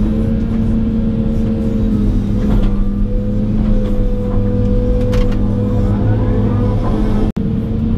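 John Deere 200 excavator running steadily under load, its engine and hydraulics heard from inside the cab while the bucket digs in wet mud, with a couple of knocks. The sound breaks off for an instant near the end.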